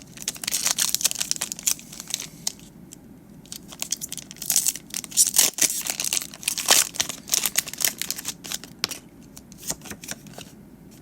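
Foil Pokémon card booster pack wrapper being torn open and crinkled: crackling in two long runs, with a short pause between them, thinning out near the end.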